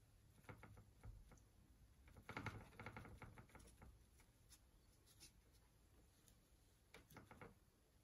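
Faint scratching and dabbing of a paintbrush laying oil paint onto a painting panel, in short clusters of strokes: about half a second in, a longer run between two and four seconds in, and a brief run near the end.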